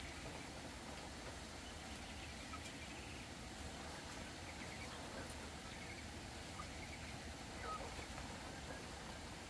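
Faint, steady outdoor background noise with a few soft, short bird chirps scattered through it.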